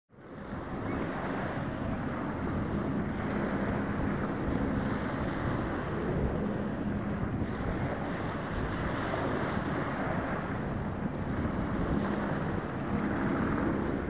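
Strong wind blowing across the microphone, a steady rushing noise that fades in at the start, with a faint low drone coming and going underneath.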